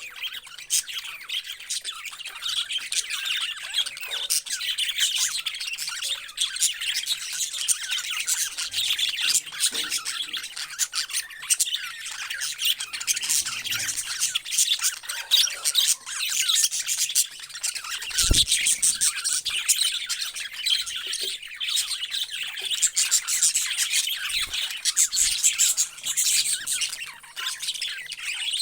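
Many parrots chattering and squawking together, with a dense, unbroken mix of overlapping high chirps and calls. There is a brief dull bump about two-thirds of the way through.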